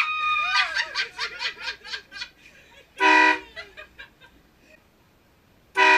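Loud train horn sounded in short blasts: one about half a second long about three seconds in, and another starting just before the end. At the start, as an earlier blast cuts off, there is a burst of laughter in quick ha-ha pulses that fades over about two seconds.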